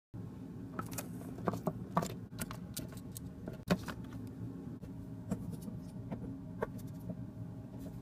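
Handling noise of small plastic toy figures being moved by hand: scattered light clicks and taps of plastic on the tabletop and set, the sharpest a little under four seconds in, over a steady low hum.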